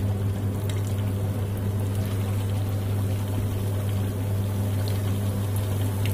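Semolina jalebi coils deep-frying in hot oil in a kadai: a steady sizzle with a few faint pops, over a steady low hum.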